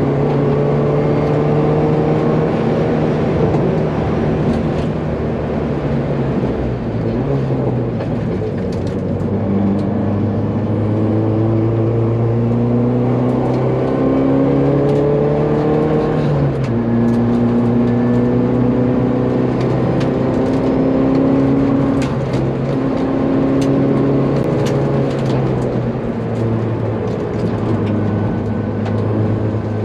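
Hyundai Veloster N 2.0-litre turbocharged four-cylinder engine heard from inside the cabin at track speed. Its pitch climbs and then drops back several times as the driver works through the gears and lifts off for corners.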